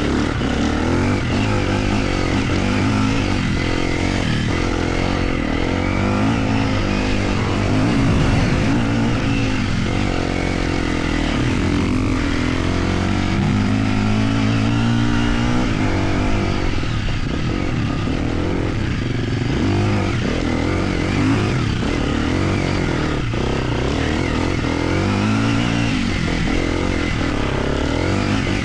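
250cc four-stroke enduro dirt bike engine running and revving, its pitch rising and falling with the throttle.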